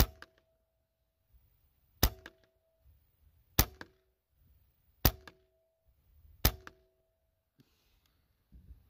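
Five shots from a .177 Benjamin Maximus PCP air rifle firing 18-grain slugs, sharp cracks about one and a half to two seconds apart. Each shot is followed by a short ringing tone.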